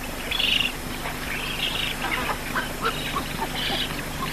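Birds calling at a nesting colony: a short high call repeated about once a second, with quick brief chirps in between.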